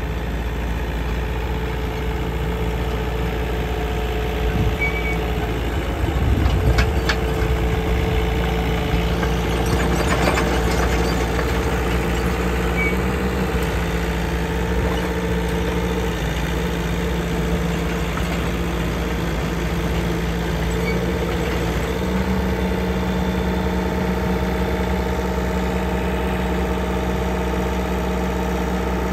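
Mini excavator's diesel engine running steadily as the machine travels and works its arm, its pitch stepping up or down a few times in the second half. A few knocks between about six and ten seconds in.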